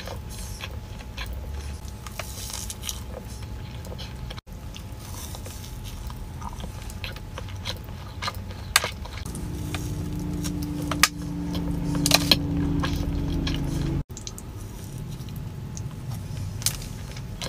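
Close-up chewing of a soft chocolate chip cookie: wet mouth sounds with many small sharp clicks. A steady low hum comes in about nine seconds in and stops suddenly about five seconds later.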